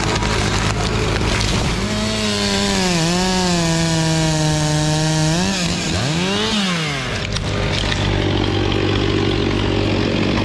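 Chainsaw running and cutting, its pitch sagging under load, holding, then revving up and down before it stops about seven seconds in. A steady machine hum runs underneath.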